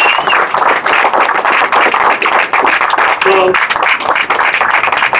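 Crowd applauding, with dense steady clapping and a short voice calling out about three seconds in.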